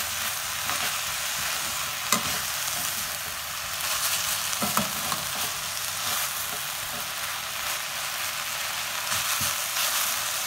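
Drumstick leaves, onions and chillies sizzling in hot oil in a metal kadai while being stirred with a perforated spatula, which knocks and scrapes against the pan a few times.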